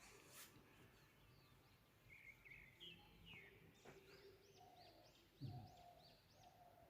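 Faint bird chirping: a few short calls, then a quick series of short high chirps about three a second in the second half. A brief low sound cuts in about halfway through.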